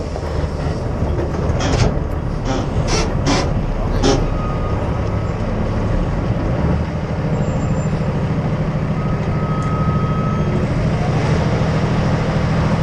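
Kenworth T880 semi tractor's diesel engine running steadily as the loaded lowboy rig creeps through a turn, with a few sharp knocks and rattles from the rig in the first four seconds.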